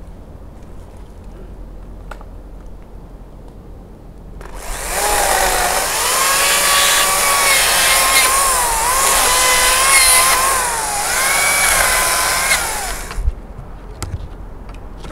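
Makita top-handle battery chainsaw cutting wood, starting about four and a half seconds in and running for about eight seconds; its whine dips and wavers in pitch as the chain bites into the wood, then it stops abruptly.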